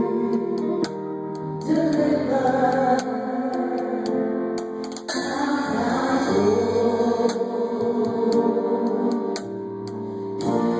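Music with several voices singing together, choir-style, over long held chords, with light percussion ticks throughout.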